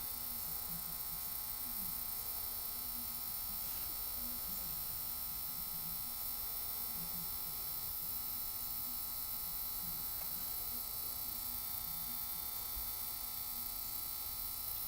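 Steady electrical hum with a thin high whine over it, unchanging throughout.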